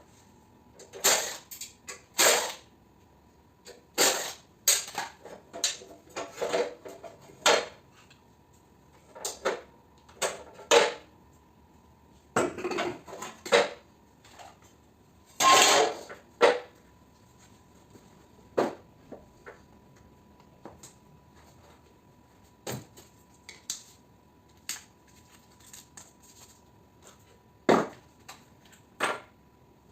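Irregular metallic clanks, clinks and short rattles of metal parts and hand tools being handled, some strikes loud, with a faint steady high hum underneath.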